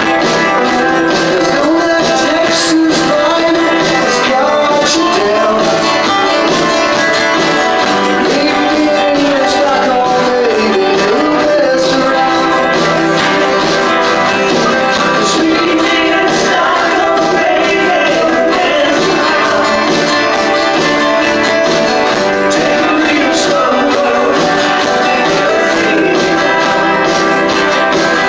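Live country-rock band playing an instrumental passage: electric guitar, acoustic guitar, pedal steel guitar and drums, with a gliding, bending lead line over a steady beat.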